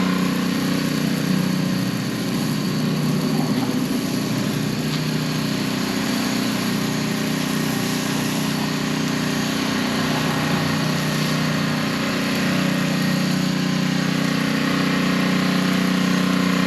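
Gasoline pressure washer's small engine running at a steady speed, a continuous hum with a hiss over it.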